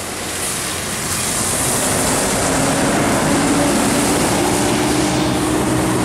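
Tour bus engines running and tyres hissing on wet road as buses drive through a bend, a steady drone with a faint humming tone that comes in about two seconds in. No horn sounds in this stretch.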